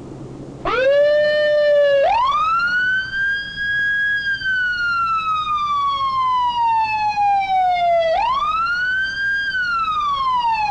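Police car siren wailing loudly. A short rising whoop comes about half a second in, then slow sweeps rise and fall, climbing again near the end. It is the patrol car signalling a suspect vehicle to pull over.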